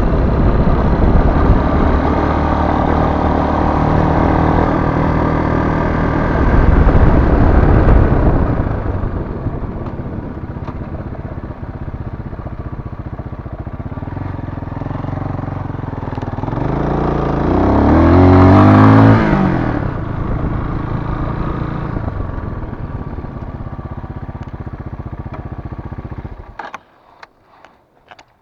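ZiD 250 motorcycle engine running hard, then easing off to a steadier, lower running about eight seconds in. It is blipped once with a rising then falling pitch about two-thirds of the way through, settles back, and cuts off suddenly a couple of seconds before the end, followed by a few faint clicks.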